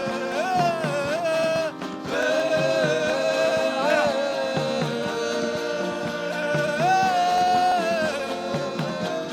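Gospel worship music: a sustained melodic line that holds notes and slides between them over a soft, steady beat, with no words. The music briefly drops out just before two seconds in.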